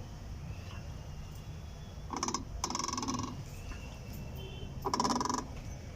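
Three creaking groans from a worn bearing in a Skoda Octavia A5's front end as the steering is turned by hand: the noise the car makes when steering, traced to that bearing. The creaks come about two seconds in, again just after, and near the end.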